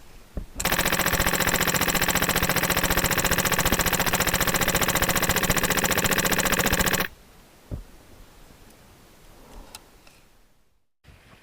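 HPA-powered airsoft gun firing one long full-auto burst of about six seconds, a fast, even rattle of shots that stops abruptly. A single sharp click comes just before the burst and another shortly after it.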